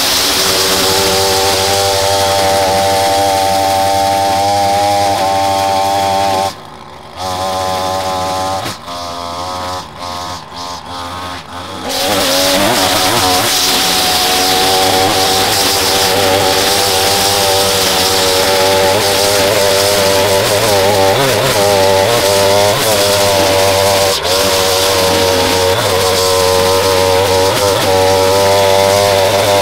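Small gasoline engine of a lawn-care tool running at speed. About six and a half seconds in it drops off sharply and runs unevenly for several seconds, then comes back up to full speed about twelve seconds in and runs steadily again.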